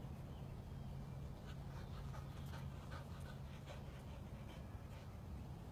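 A dog panting softly, over a low steady hum.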